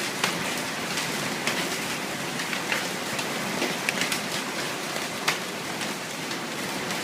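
Hail falling: a dense steady patter with many sharp, irregular ticks of individual hailstones hitting, one louder strike about five seconds in.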